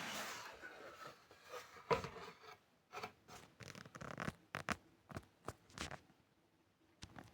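Handling noise: a rustle, then a run of light clicks and knocks of things being picked up and set down.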